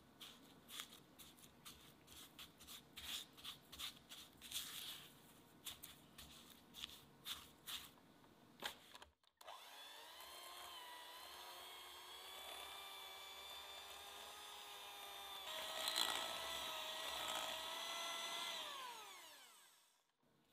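A silicone spatula stirs butter and sugar in a glass bowl with soft scrapes and light clicks. Then an electric hand mixer starts up with a rising whine and beats the butter and sugar at high speed, creaming them. It runs steadily, gets louder for a few seconds, then winds down with falling pitch as it is switched off.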